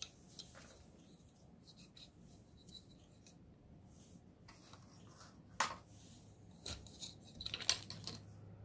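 Small clicks and knocks of a tripod stand being handled and set up for a ring light, with one sharp clack about five and a half seconds in and a run of quick clicks near the end.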